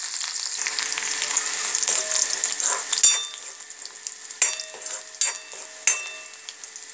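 Sliced onions sizzling in hot oil in a kadai, loud at first and dying down about three seconds in. A steel spoon stirs them, knocking sharply against the pan four times with a short metallic ring.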